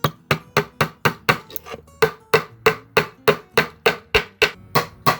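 A hammer striking repeatedly in a steady rhythm, about three to four blows a second, with a brief pause near two seconds in.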